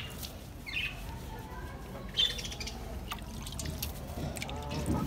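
Water trickling from a hand onto chopped dry straw in a metal tub, with birds chirping and squawking around it.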